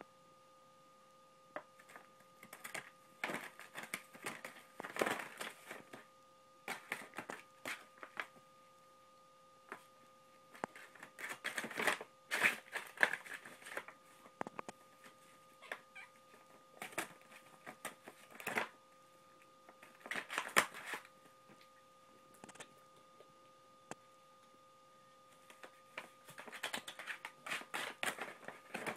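Paper bag crinkling and tearing as a cat claws and bites at it, in irregular flurries of crackling with quieter pauses of a second or more between them.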